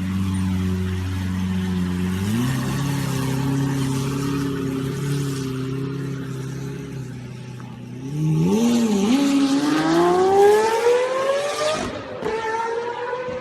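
Lamborghini Murciélago V12 engine idling, with a short blip of the throttle about two seconds in. About eight seconds in it pulls away: the engine note climbs steadily, drops at an upshift near the end, and climbs again.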